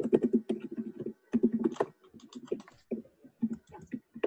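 Typing on a computer keyboard: a quick, irregular run of key clicks with short pauses.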